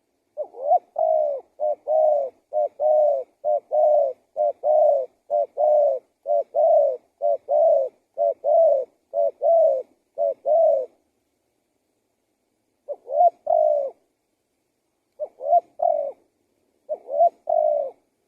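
Spotted dove cooing: a long run of quick repeated coos, then a pause of about two seconds and a few shorter cooing phrases near the end.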